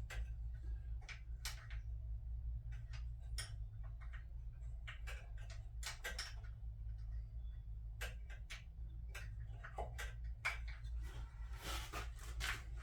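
Irregular small clicks and taps of hand tools and metal parts as fasteners are worked loose on a quad bike's carburettor, over a steady low hum.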